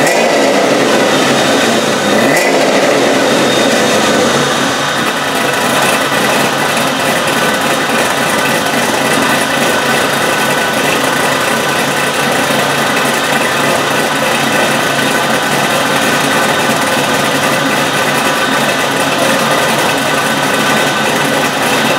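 LS-series V8 running through a freshly built aluminized-steel dual exhaust with an X-pipe. Its pitch rises and falls in the first few seconds, then it settles into a steady idle.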